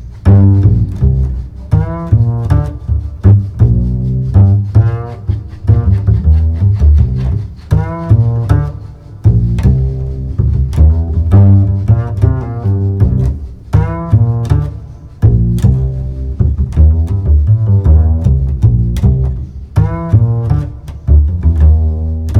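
Background music with deep bass notes and a steady, plucked-sounding beat.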